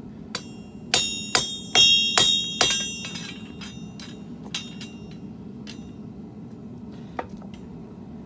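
Blacksmith's hammer striking steel on an anvil: a quick run of about six loud, ringing blows in the first three seconds, then a few lighter, scattered taps.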